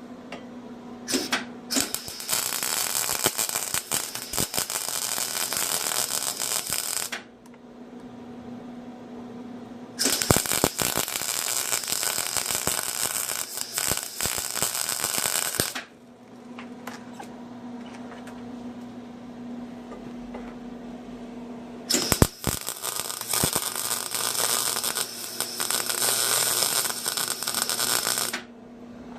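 Electric arc welding on the steel saw blade: three welding beads of about six seconds each, a steady crackling hiss that starts and stops abruptly. A low steady hum sounds in the pauses between the beads.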